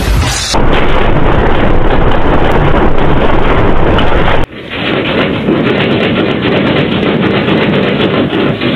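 Loud, continuous earthquake rumbling with the rattling and shaking of buildings and their contents. The sound changes abruptly about half a second in and again about four and a half seconds in. After that it turns duller and thicker with many small rattles and knocks.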